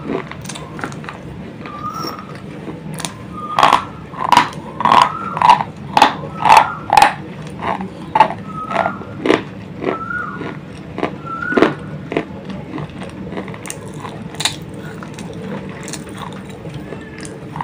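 Brittle white slate pencils being bitten and chewed close to the mouth: a run of sharp, dry crunches, fastest and loudest from about three and a half to seven and a half seconds in, then slower and sparser.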